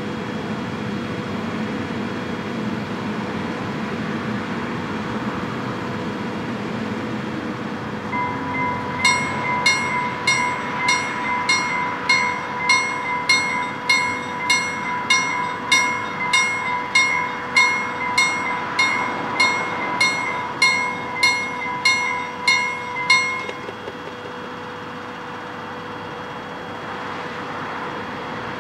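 Railroad level-crossing warning bell ringing in a steady rhythm, a little under two strikes a second, as the crossing activates and the barriers lower for an approaching train. It starts about nine seconds in and stops abruptly about fourteen seconds later, over a steady low background noise.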